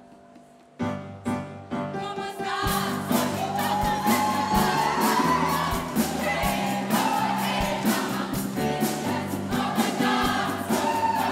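Live band music: a held keyboard chord starts suddenly about a second in, then drums with a steady beat and a group of voices singing join.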